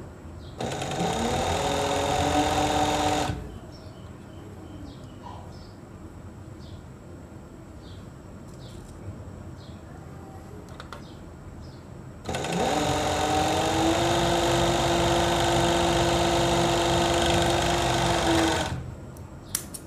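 Industrial overlock machine used for pico edging, stitching in two runs: a short one of about three seconds near the start and a longer one of about six seconds in the second half. Each run begins with a rising whine as the motor comes up to speed and then runs steadily. It is a test stitch on a fabric edge after the thread tensions were reset for a frill pico.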